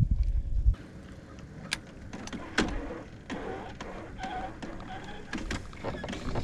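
Low wind rumble on the microphone that cuts off under a second in, then scattered light clicks and knocks of fishing tackle and feet on the boat deck, with faint voices in the background.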